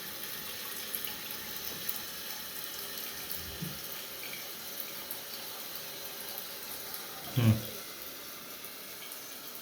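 Newly installed dual-flush water-saver toilet refilling after a test flush: a steady hiss of water running into the tank.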